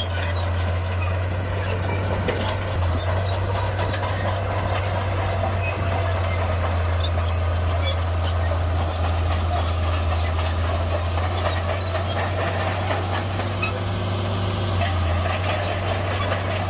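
Heavy diesel earthmoving machinery running steadily under load, a deep continuous engine drone with scattered light clicks and squeaks above it.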